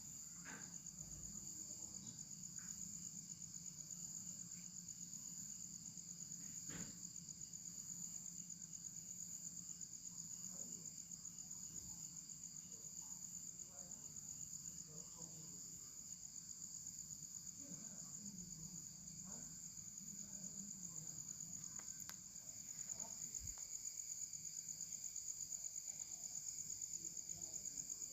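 Steady high-pitched pulsing trill of insects, with a low hum underneath and a few faint scattered clicks; it grows a little louder about three quarters of the way through.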